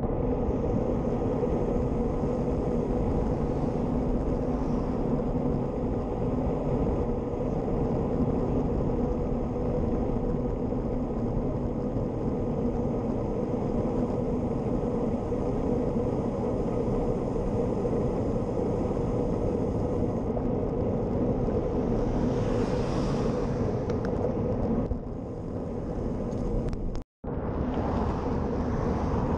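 Steady wind buffeting and road-tyre noise picked up by a handlebar-mounted GoPro Hero Session on a moving road bike. A car passes close by near the end, and the audio cuts out for an instant just before it.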